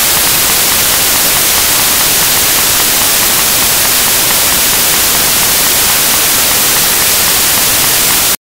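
Loud, steady white-noise static from a damaged videotape soundtrack, with no program sound under it. It cuts off abruptly into dead silence just before the end.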